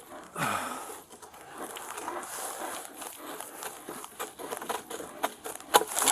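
Rustling and crackling in forest brush, with scattered snaps and knocks, as a rope-tangled bull elk shifts about. A short low falling sound about half a second in, and sharper snaps near the end.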